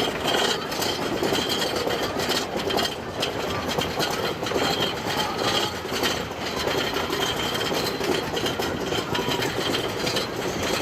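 Wooden roller coaster train rumbling and clattering along its track, a dense, steady rattle full of irregular clacks.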